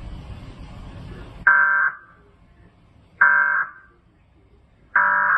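Three short bursts of pitched-down Emergency Alert System digital data tones, evenly spaced about a second and a half apart, each a loud buzzy warble lasting about half a second: the end-of-message code that closes the alert after the spoken warning breaks off.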